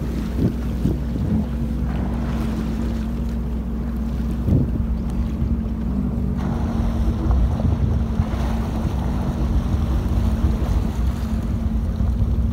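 Jetski engine idling with a steady low hum, under wind rushing over the microphone and the slap of choppy sea, with a few brief thumps of wind gusts on the mic, the strongest about four seconds in.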